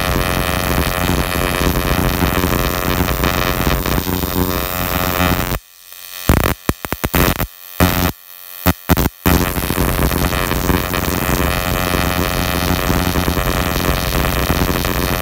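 Plasma ignition spark firing rapidly across the electrode of a non-resistor spark plug: a loud, continuous electrical buzz with hiss. About midway it stutters, cutting in and out for a few seconds, then runs steadily again.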